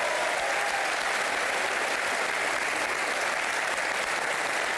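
Studio audience applauding steadily, a dense, even clapping of many hands.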